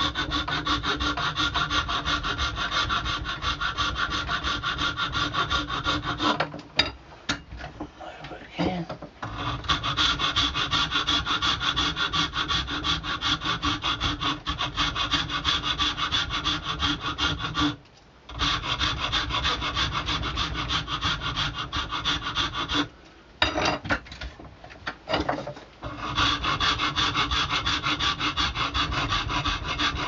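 Big coarse rough-cut hand file rasping down the glued joint of an antler thumb stick held in a vise, in steady back-and-forth strokes that stop briefly a few times.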